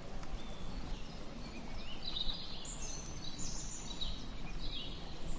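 Songbirds calling in short, high, whistled phrases about once a second, several of them dropping in pitch, over a steady outdoor background hiss.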